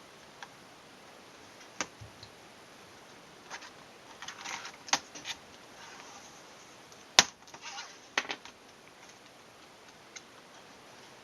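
Scattered sharp plastic clicks and short crackly rattles from a laptop's keyboard and plastic case being handled during disassembly. The loudest click comes about seven seconds in.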